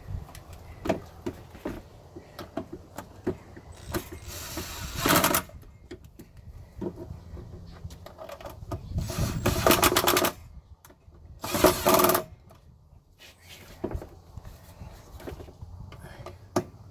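Cordless impact driver running down the nuts on the motor cable terminals in three bursts, about four, nine and twelve seconds in, the last one short. Between the bursts, scattered clicks of tools and cables being handled over a low rumble.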